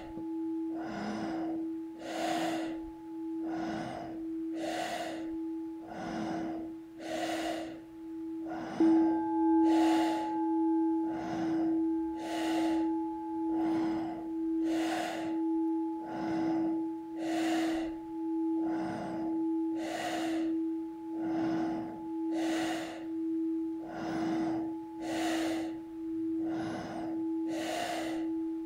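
Forceful rhythmic breathing through the nose, about one breath a second, in an intensive breathing exercise. Under it a singing bowl rings steadily with a slow pulsing, and is struck again about nine seconds in, ringing louder.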